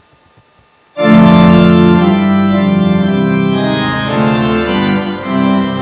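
Organ music starting suddenly about a second in: loud held chords that shift slowly from one to the next.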